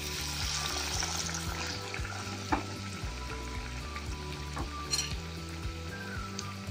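Batter-coated raw banana slices deep-frying in hot oil, sizzling steadily, with one sharp tick about two and a half seconds in.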